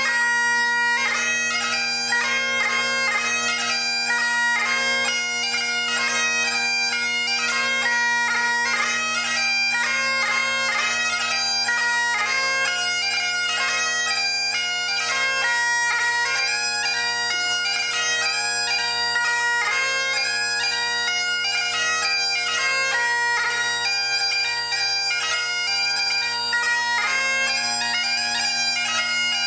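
Great Highland bagpipe played solo: the drones hold one steady tone underneath while the chanter plays a quick-moving melody with rapid note changes.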